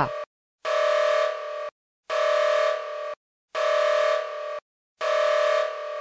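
Electronic emergency alert tone: a steady two-pitch beep sounding four times, each about a second long with short silent gaps between, dropping a little in level just before each cut-off.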